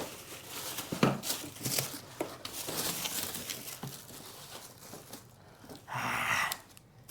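Plastic wrapping being crinkled and torn off a newly unboxed chair, in irregular rustles with a louder, denser rustle about six seconds in.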